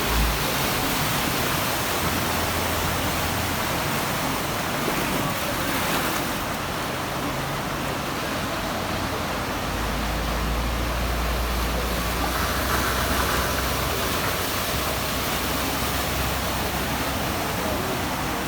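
Steady rushing of a swollen, flooding river, with a low rumble at the bottom from about ten seconds in.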